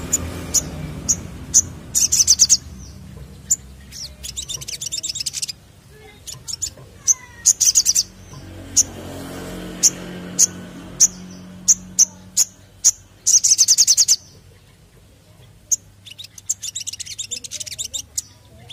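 Male olive-backed sunbird calling: sharp, high single chips scattered through, broken by several bursts of very fast trilling lasting about half a second to a second and a half each.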